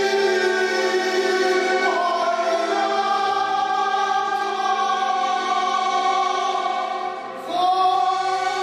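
Background choral music: a choir singing long held chords. The chord shifts about two seconds in, and near the end the sound dips briefly before a new chord comes in.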